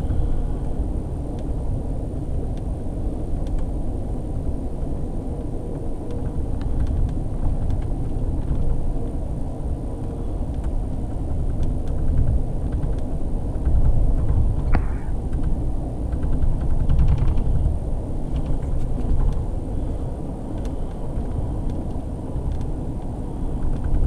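Steady low rumble of a passenger train running along the track, heard from inside the car, with faint clicks and one short squeak about fifteen seconds in.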